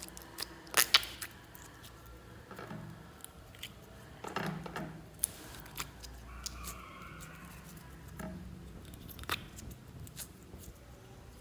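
Hands handling slime: small sticky clicks and soft squelches as pieces of slime are pulled out of a plastic palette container and squeezed. The loudest is a pair of sharp clicks about a second in, and a longer squishy stretch comes about four seconds in.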